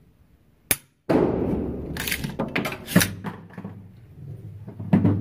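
A gunshot just after a second in, loud and sudden, echoing and dying away inside an indoor range, with a sharp click just before it. Scattered lighter clicks and knocks follow, and another sharp crack comes near the end.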